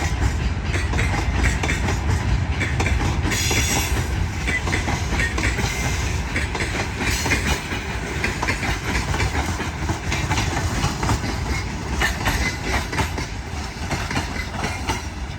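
Wheels of a passing freight train clattering over rail joints: a steady, rapid clickety-clack. A brief high hiss comes about three seconds in, and the sound eases slightly near the end.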